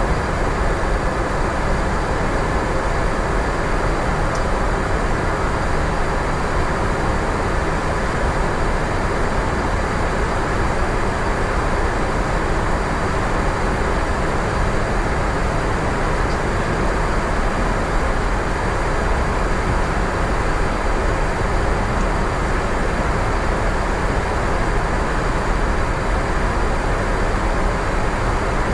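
Steady rushing noise on the Airbus A350-900 flight deck in flight, the airflow and engine noise of the airliner, unchanging throughout.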